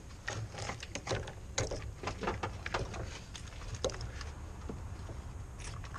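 Mercedes-Benz C180 W202 fuel-injection wiring harness being pulled out by hand: a run of irregular clicks, crackles and scrapes as the dried-out, brittle insulation crumbles and the wires drag free, thinning out after about four seconds, over a steady low hum.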